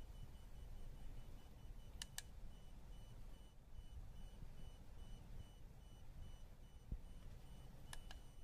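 EL wire battery-pack inverter whining faintly at a high pitch, the whine pulsing on and off several times a second as the wire blinks. Two clicks of the pack's push button come about two seconds in and again near the end, after which the whine turns steady as the wire stays lit.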